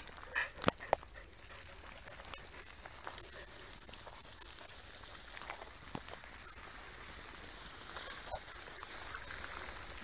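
Footsteps on a gravel path: faint steady crunching and rustling as people and dogs walk, with a few short clicks in the first second.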